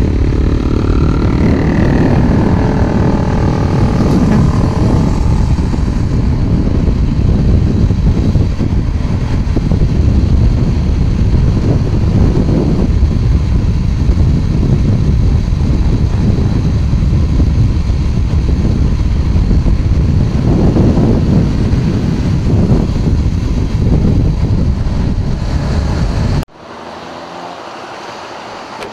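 Motorcycle engine running at road speed with heavy wind rush on the microphone, heard from the rider's own bike; in the first few seconds the engine revs up with a rising whine. Near the end it cuts suddenly to a much quieter background.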